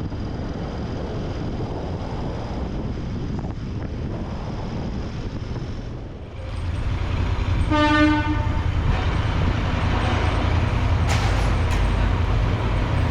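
Royal Enfield Interceptor 650 parallel-twin riding along, a steady low rumble with road and wind noise; it dips briefly about six seconds in, then grows louder. A little before eight seconds in, a single horn toot of about half a second sounds.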